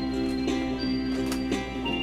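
Background music with held, steady notes.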